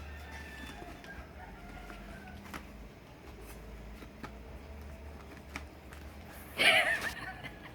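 A rooster crowing faintly in the background over a steady low hum, with a brief, much louder pitched call or voice about six and a half seconds in.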